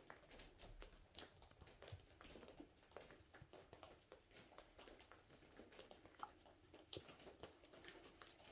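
Near silence: room tone with faint, scattered ticks and taps.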